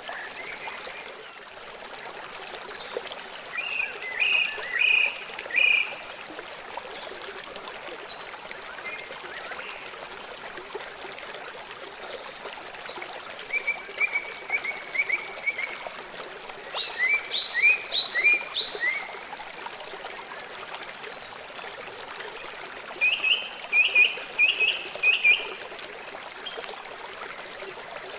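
Flowing stream running steadily, with a songbird singing four short phrases of quick repeated high notes, one a fast trill and one a run of falling notes.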